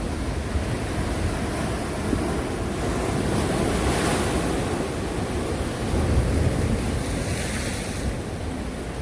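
Ocean waves breaking and washing on the shore in a steady rush, with two louder surges of wash, one about four seconds in and one near the end.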